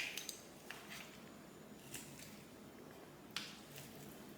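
A few light, sharp clicks and taps, plausibly utensils knocking on a plate as a toddler's food is cut, over quiet room tone.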